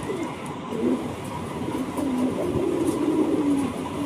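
Domestic fancy pigeons cooing in a cage, a run of low, wavering coos one after another.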